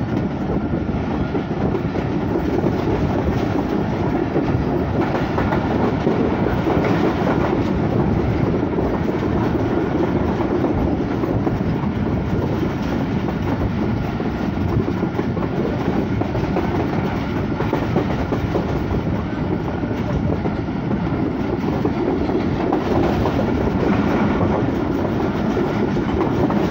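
Running noise of a passenger train heard from the open doorway of a moving coach: a steady, loud rumble of wheels on track with air rushing past.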